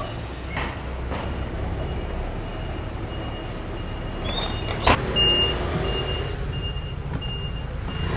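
A bus engine running with a low rumble; about five seconds in, a sharp hiss and knock, then a high beep that repeats about twice a second.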